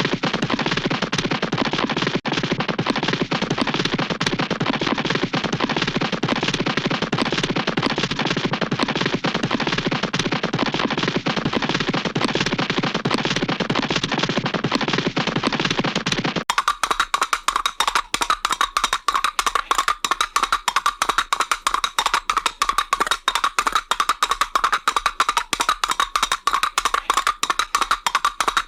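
Hanna-Barbera cartoon sound effects: a dense, rapid rattling clatter for about sixteen seconds, then an abrupt change to a fast train of sharper, higher ticks.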